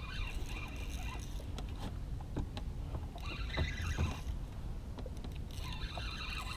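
Spinning fishing reel whirring in short spells, about three times, as line goes out and is wound in on a hooked, fighting fish, over a steady low rumble of wind and water against the small boat.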